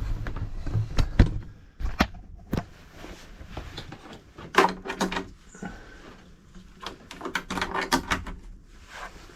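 Sharp clicks and knocks of hardware being handled: a few single ones in the first three seconds, then short clusters about four and a half and eight seconds in, over a low steady rumble.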